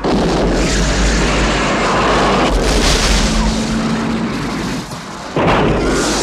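Rocket booster in the tail of an Aston Martin V8 igniting with a sudden loud blast, then running as a steady, dense rush. It dips briefly about five seconds in and surges again.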